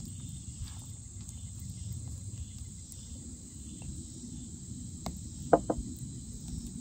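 Steady high chirring of crickets or other insects, over a low rumble. About five seconds in come a few sharp clicks from a wooden spoon knocking against the glass jar of raspberry preserves.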